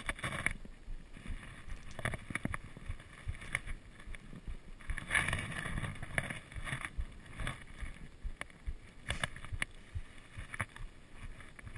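Wind buffeting and irregular rustling and knocking on a body-worn camera's microphone as the wearer walks through long grass.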